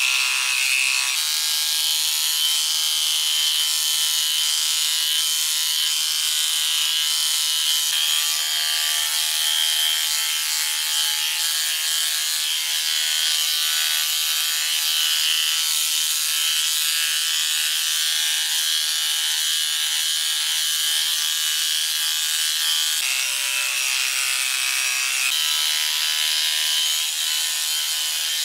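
Corded electric pet clippers buzzing steadily as they shave a poodle's curly coat, the blade rasping through the hair. The tone shifts slightly a few times as the clippers change angle.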